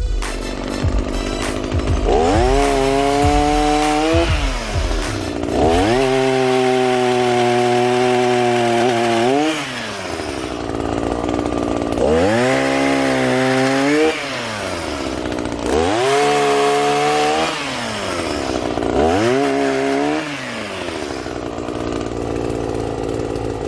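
Two-stroke engine of an ECHO PPT-280 gas power pruner revving up five times, its pitch climbing, holding for one to four seconds and falling back to idle after each, as the chain cuts through fallen limbs. A rasp of the chain in the wood rides over the engine during each cut.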